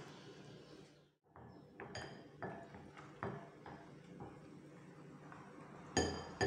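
Silicone spatula stirring cream cheese and egg yolk batter in a glass mixing bowl, knocking against the bowl's side in short irregular clicks. About six seconds in comes a louder ringing clink of glass.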